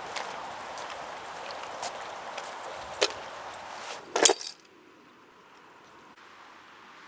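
Slow footsteps on wet asphalt over a steady outdoor hiss, with a loud clattering cluster of clicks about four seconds in. Right after it the hiss cuts away suddenly to a much quieter background.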